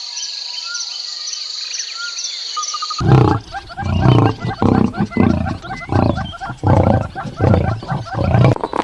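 Birds chirping over a steady high buzz for about three seconds, then a big cat cuts in with a loud run of about ten deep, grunting roars, about two a second.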